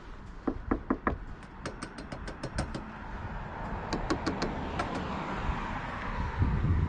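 Hand knocking and tapping on a Jeep Wrangler's roof rack crossbar and mounting bracket: four sharp knocks, then runs of quick light ticks at about eight a second. A low rumble comes near the end.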